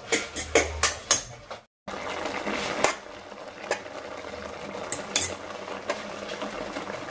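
A metal spoon clinking and scraping against a non-stick kadhai as instant noodles are stirred in it, with a brief dropout under two seconds in.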